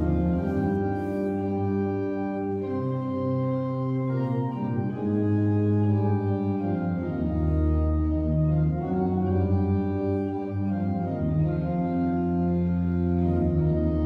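Church organ playing slow, sustained chords over deep pedal bass notes, the chords changing every second or two.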